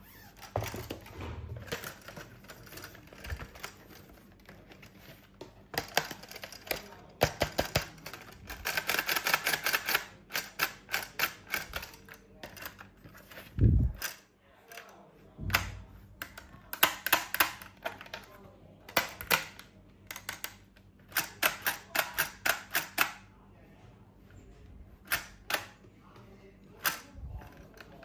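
Plastic toys and packaging being handled: quick runs of sharp clicks and rattles, with one low thud about halfway through.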